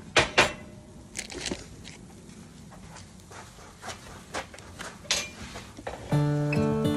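A few scattered sharp clicks and knocks, two of them close together at the start, then acoustic guitar music starts about six seconds in.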